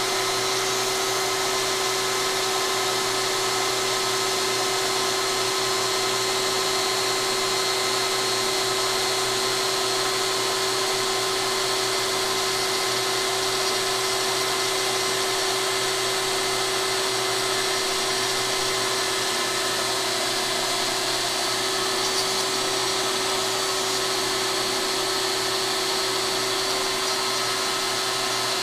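DeWalt compact router spinning at steady speed on a CNC gantry while it cuts grooves in a sheet: a constant motor whine with a few fixed tones over a haze of cutting and airflow noise.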